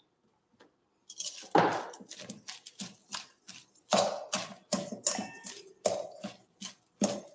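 Metal tongs tossing shredded cabbage slaw in a stainless steel mixing bowl: irregular clinks of metal on the bowl with the rustle of the cabbage, starting about a second in.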